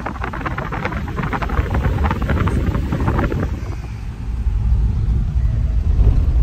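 Low rumble of a Mitsubishi vehicle driving, heard from inside the cabin with the side window open; it builds up about four seconds in. Before that comes a stretch of dense crackling noise.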